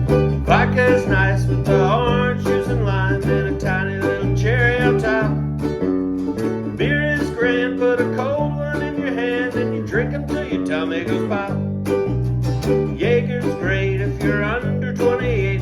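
Small acoustic band playing an instrumental intro: plucked strings such as guitar and ukulele over a steady, repeating bass line, with a wavering lead melody on top.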